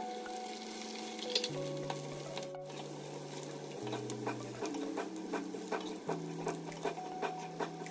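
Cut okra frying in hot oil in an aluminium kadai, stirred with a slotted spoon: a sizzle with crackling spatters that come thicker from about halfway through. Soft background music with held notes plays over it.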